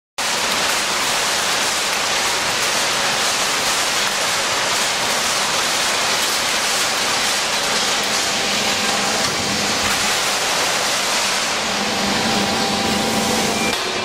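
Can baler running as used aluminium beverage cans ride up its conveyor into the press: a steady, dense, hiss-like clatter of metal cans.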